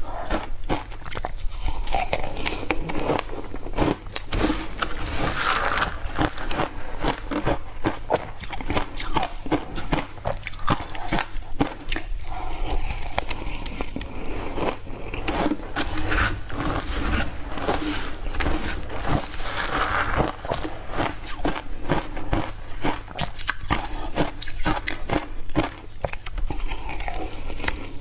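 Ice being bitten and crunched between the teeth: a continuous run of crisp, sharp crunches, several a second.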